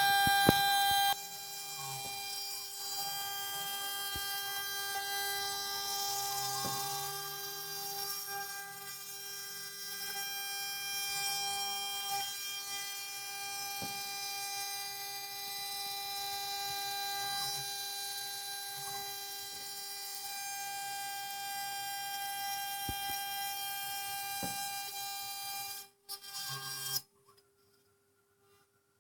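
A CNC 6040 router running, with a steady whine made of several fixed tones, faint changes in pitch and a few sharp ticks. It gets noticeably quieter about a second in and stops near the end.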